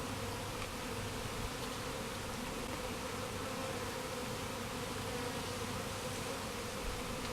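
Honey bees buzzing steadily in a large mass around an opened hive. They are agitated because no smoke was used.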